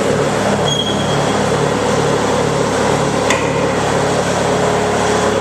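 Bobcat S220 skid steer's 75-horsepower diesel engine running steadily at a constant speed, with one sharp click about three seconds in.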